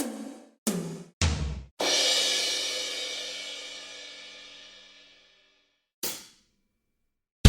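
Drum-kit sound effect: three quick drum hits, then a cymbal crash that rings and slowly fades over about three and a half seconds, followed by a single short bright hit.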